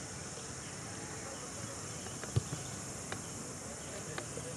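Steady high-pitched drone of insects in the trees around an open field, with a few short knocks, the loudest a little past halfway.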